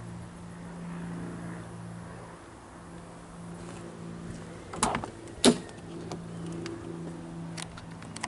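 Nissan Primera front door handle pulled and the latch releasing: two sharp clicks about five seconds in, the second louder, then a lighter click near the end, over a steady low hum.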